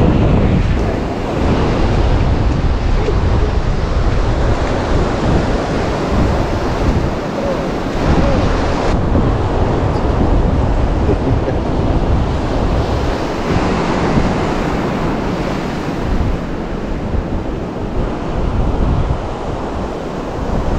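Ocean surf washing onto the shore, with wind buffeting the microphone in a low, uneven rumble.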